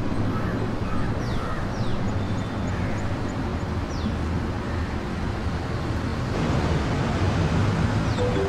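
Outdoor street ambience: a steady low traffic rumble with a few high, short falling chirps from birds now and then.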